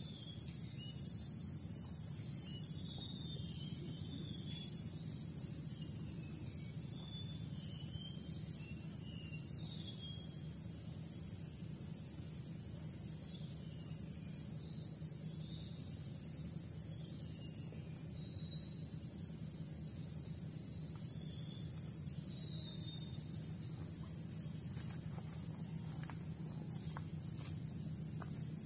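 Insects droning steadily at a high pitch, with birds giving many short chirps through it and a few faint clicks near the end.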